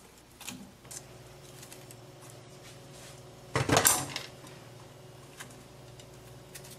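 Sliced onions being dropped by the handful into a stainless steel pot, with light clicks of metal tray against pot. About three and a half seconds in, a brief, louder clatter of tray and pot as the last of the onions are tipped in.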